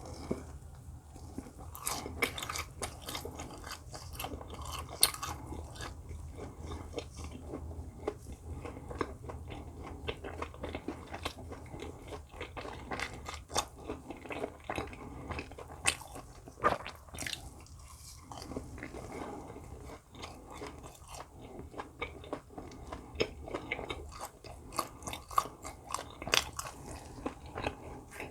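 A person biting and chewing food close to the microphone: wet mouth sounds with many short, sharp clicks, denser near the start and near the end.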